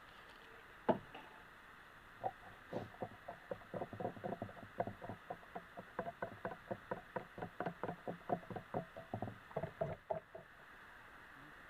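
A quick, regular run of light clicks, about four to five a second, starting about two seconds in and stopping near the end, over a steady hiss of rain.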